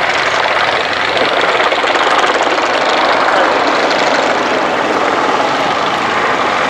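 AgustaWestland Apache attack helicopter manoeuvring in flight: a steady, loud rush of rotor and turbine engine noise.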